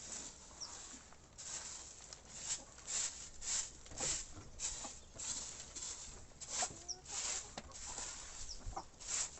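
Chickens in a poultry house: irregular scratching and rustling in the litter, with a few short faint peeps.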